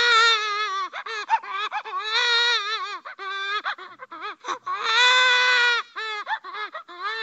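Cartoon crybaby crying sound effect: a high-pitched wailing cry broken up by short choppy sobs. There are longer held wails about two seconds in and about five seconds in.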